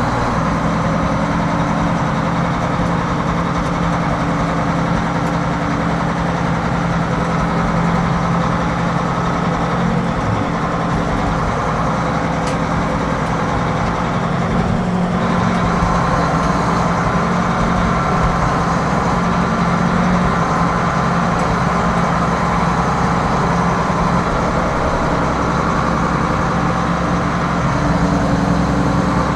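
Farm tractor engine running steadily while pulling a full grain cart across rough field ground.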